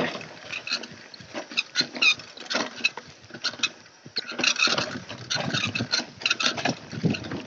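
Mountain bike clattering over tree roots and dry leaf litter on a fast descent: a run of irregular sharp knocks and rattles with rustling tyre noise.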